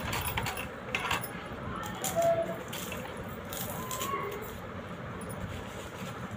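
Onions being sliced on a handheld mandoline slicer over a steel bowl: irregular scraping strokes and sharp clicks as each onion is pushed across the blade.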